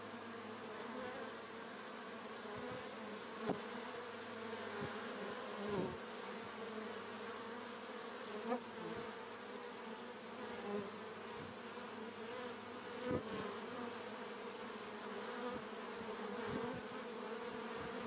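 Honeybee colony humming on open comb: a dense, steady buzz of many bees with several overlapping tones, broken about five times by a brief louder click.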